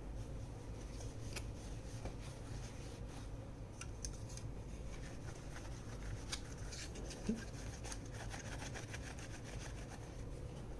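A small brush scrubbing dust off a graphics card's plastic cooling fan blades: a run of quick, scratchy bristle strokes that grow busier in the second half.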